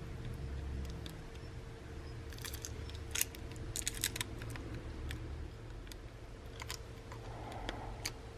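Faint, scattered light clicks and taps of small parts and tools being handled as a phone's flex-cable connector is fitted to the charging-port board, over a steady faint hum.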